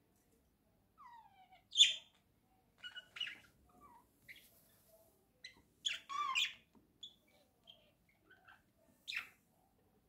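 Budgerigar chirping: short, scattered high chirps. The loudest comes near two seconds in, a quick run of calls follows around six seconds, and another chirp comes near the end.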